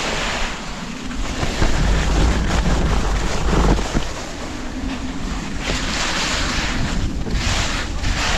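Wind buffeting the microphones of a GoPro Max camera as a skier descends, with a heavy rumble for a couple of seconds after the first second. Skis hiss over packed snow in two bursts during turns near the end.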